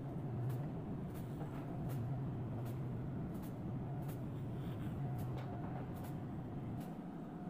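Electric hair clippers buzzing steadily as they shave hair close to the scalp, with light clicks throughout. The buzz drops briefly near the end.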